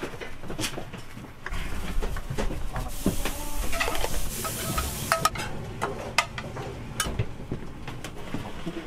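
Scattered clinks and knocks of plates, a steel bowl and chopsticks as fried udon is dished out, over a low steady rumble.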